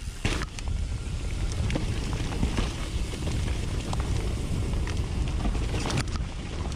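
Wind buffeting a GoPro's microphone on a downhill mountain bike descent, a steady low rumble, with the Nukeproof Mega 290's tyres and frame rattling and knocking over rough ground. There are stronger knocks just after the start and about six seconds in.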